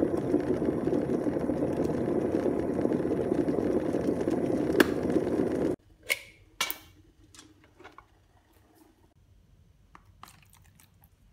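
Electric kettle heating water, a steady rushing hiss with a single sharp click about five seconds in; the sound stops abruptly, followed by a couple of sharp clicks as the plug is pulled from the wall socket. Near the end, faint sounds of hot water being poured into a plastic tub.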